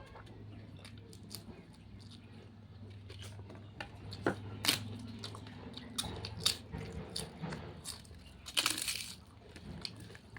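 Close-up eating sounds: a person chewing spicy jackfruit curry, with sharp mouth clicks and smacks and a short noisy burst about three-quarters of the way through, over a low steady hum.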